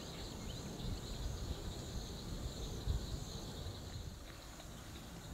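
Insects trilling steadily in the background, a high continuous chorus, over an uneven low rumble that swells about three seconds in.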